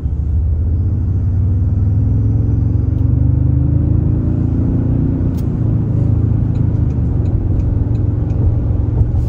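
Toyota Tundra's twin-turbo 3.4-litre V6 accelerating, heard inside the cab with the truck's artificial V8 engine sound playing over it: a deep growl whose pitch climbs over the first three seconds or so and then eases off.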